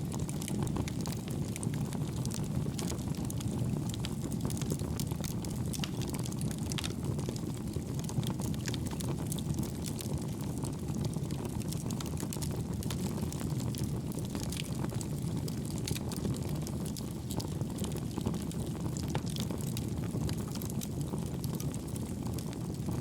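Wood fire burning in a homemade wood gas stove made from two pail cans: a steady low roar of the draft, with many irregular sharp crackles and pops from the burning wood.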